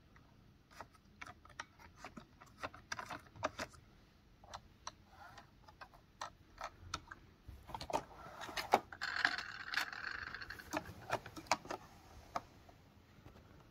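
Irregular small clicks and taps, as of hard plastic parts being handled, with a stretch of rustling about eight seconds in that lasts a few seconds.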